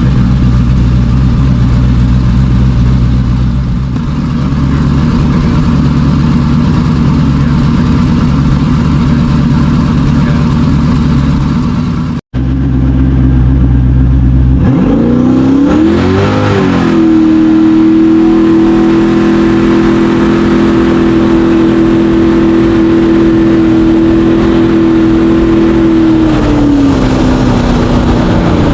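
Mini jet boat engine running steadily at low speed. After a sudden break, it revs up with a wavering pitch and holds a high, steady note at speed for several seconds, then eases off near the end.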